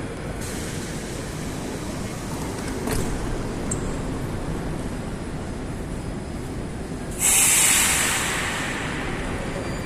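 Rusich metro train with a steady low rumble. About seven seconds in comes a sudden loud hiss of released air, which fades away over a couple of seconds.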